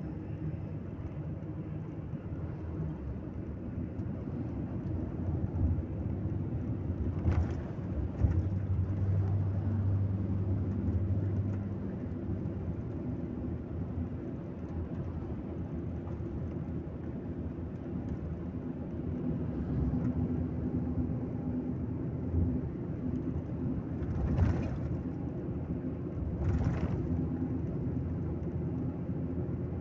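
Intercity coach's engine and road noise heard from inside the passenger cabin while cruising, a steady low drone. The engine note swells for a few seconds about a third of the way in, and a few brief knocks or rattles come through, once before that and twice near the end.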